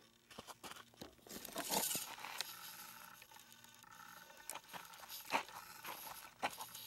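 Irregular crunching and scraping on gravel with scattered sharp clicks and knocks, with no motor running.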